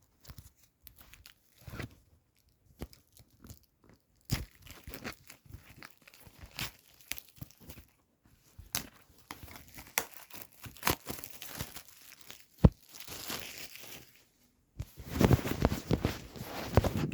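Plastic shrink-wrap being torn and crinkled off a CD jewel case, in irregular crackles and sharp clicks, with a denser stretch of crinkling near the end.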